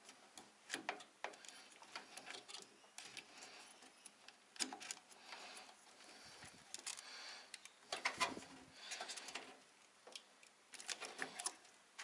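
Scattered small clicks and plastic rattles of a RAM stick being handled, lined up and pressed into a motherboard's memory slot, with a louder cluster of clicks about eight seconds in.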